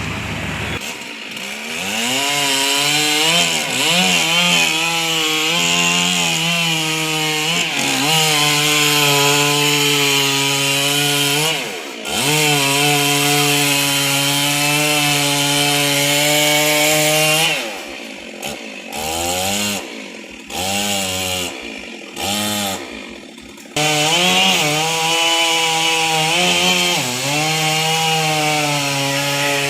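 Two-stroke chainsaw cutting a tree, its engine held at high revs under load with the pitch rising and falling. It dips briefly about twelve seconds in, then drops for several seconds into short on-off blips of throttle before returning to a steady full-power cut.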